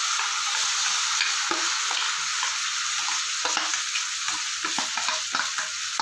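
Mashed bean paste going into hot mustard oil in a non-stick pan, the oil sizzling steadily, with frequent short scrapes and taps as the paste is scraped out of a steel bowl into the pan.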